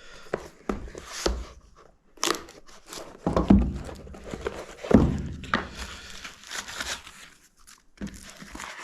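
A cardboard box being opened by hand: packaging crinkling and tearing, with scattered clicks and two louder dull thumps about three and a half and five seconds in.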